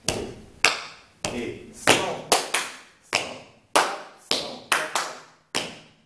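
Shoes striking a hard polished stone floor in line-dance steps: sharp stomps and taps in an uneven rhythm of about two a second, each ringing briefly in an echoing room.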